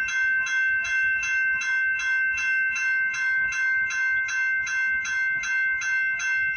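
Railroad grade-crossing bell ringing steadily, evenly spaced strikes a little over two a second, the warning that the gates are down for an approaching train.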